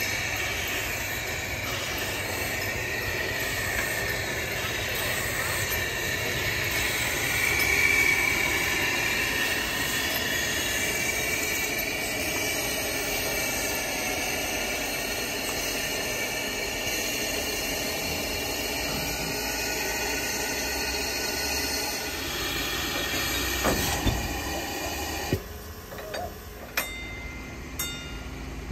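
Narrow-gauge steam locomotive JŽ 73 019 and its coaches running past close by: a steady rush of steam and rolling wheels with a high wheel squeal, loudest about eight seconds in. Near the end it dies down to a quieter background with a few sharp clicks.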